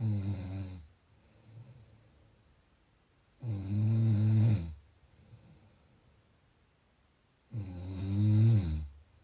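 A sleeping person snoring: three loud, low snores, each about a second long and some four seconds apart, with faint breathing between them.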